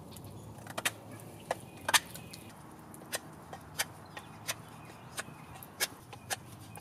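A knife whittling the end of a wooden leg, each stroke a short, sharp click, about one to two a second. The tenon is being thinned down to a sawn stop cut so that it fits a drilled mortise hole.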